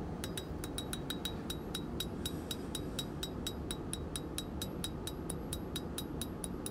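Hand hammer striking red-hot thin steel on an anvil in a quick, even rhythm of about four blows a second, each blow with a short high ring. The smith is forging the spade end of a strap hinge.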